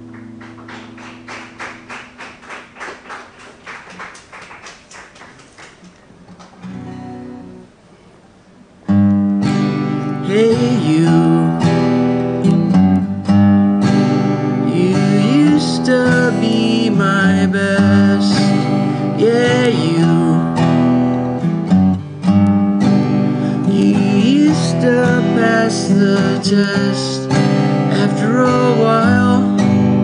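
Acoustic guitar strummed softly and fading over the first few seconds, then a single chord and a short pause. About nine seconds in the guitar comes back in louder, strummed steadily, with a man singing over it.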